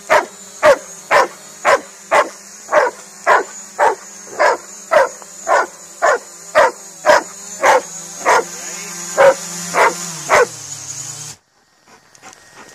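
A dog barking over and over, about two barks a second, at a quadcopter drone hovering close by. The drone's propellers make a steady hum and high whine underneath. After the barking stops, the hum drops in pitch and cuts out near the end.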